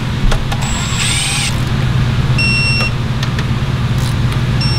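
A cordless ratchet whirs briefly about a second in. A digital torque wrench then beeps, once a bit past two seconds and again near the end, the signal that the bolt has reached its set torque. A steady low hum runs underneath.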